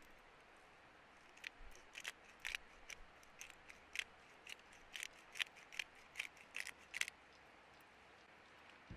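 A quick, uneven series of about twenty short, sharp snips and clicks, starting about a second and a half in and stopping about two seconds before the end.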